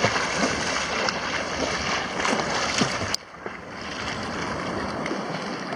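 Sea water and wind at the surf: a steady rushing and sloshing noise around a surfboard on the water, dropping suddenly in level about three seconds in.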